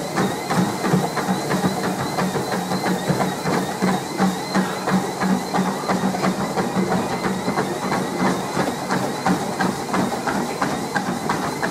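Running footfalls on a treadmill, thudding on the moving belt at about three steps a second, over the machine's steady high whine.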